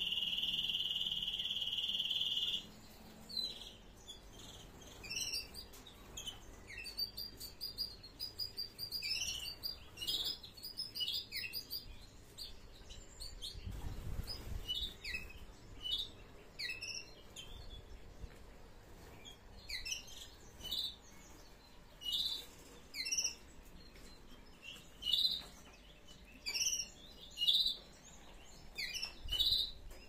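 Domestic canaries chirping and singing: a high steady trill held for the first two to three seconds, then short chirps and a fast song phrase that come and go.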